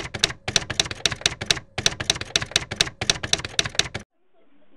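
Typewriter key strikes added as a sound effect to text being typed onto a title card: rapid even clacks, about five a second, with a few short pauses, stopping suddenly about four seconds in.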